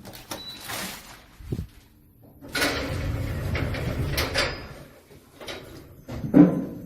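Lift doors sliding and knocking, with a low rumble from the lift mechanism in the middle and a louder knock near the end.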